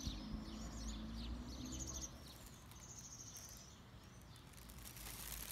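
Small birds chirping, with short high trills coming every second or so and quick falling calls, over faint outdoor background noise. A low rumble sits under the first two seconds, then drops away.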